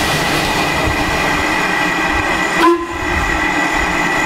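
Steady hiss of steam from a standing LMS Ivatt 2MT tank locomotive, with a thin high ring through it and a single knock about two and a half seconds in.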